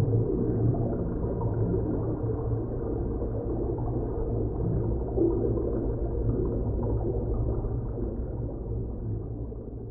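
A deep rumbling drone with a low hum, a designed science-fiction underwater/space sound effect, fading toward the end.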